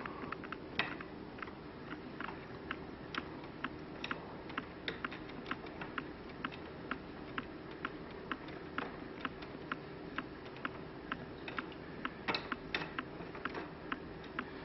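Light, sharp clicking at an even pace of about two to three clicks a second over a steady hum, with a few louder clicks about a second in and near the end.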